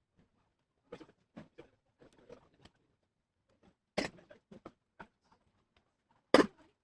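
Scattered light clicks and taps of small tools and plastic laptop parts being handled, with a sharper knock about four seconds in and the loudest one near the end.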